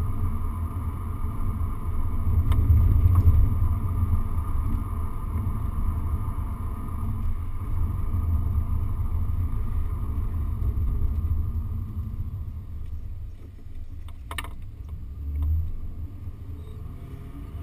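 Engine and road noise of a moving car heard from inside its cabin: a steady low rumble that swells a few seconds in and grows quieter in the last third. A single short click comes about three-quarters of the way through.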